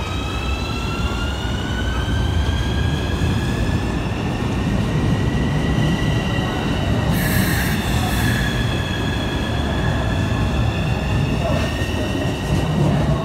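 Keikyu 1000-series train's Siemens VVVF inverter whining, the so-called 'screaming' train: a stack of tones climbs in pitch as it accelerates, then dips slightly and levels off, over the rumble of wheels on rail. A short hiss breaks in about halfway.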